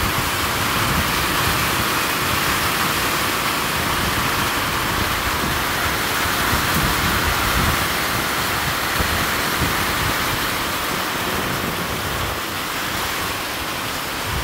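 Heavy tropical downpour: a steady, dense hiss of rain pouring onto the corrugated metal roof overhead and the surrounding vegetation.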